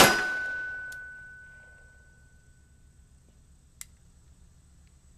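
A single shot from a Model 1892 French ordnance revolver firing 8mm Lebel revolver ammunition, its report dying away over about two seconds with a ringing note that lingers for about three. A sharp metallic click follows about four seconds in.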